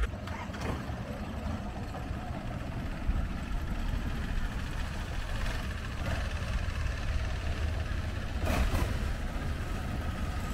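A boat engine, most likely a longtail boat's motor, running at a steady low rumble. Two short knocks come near the end.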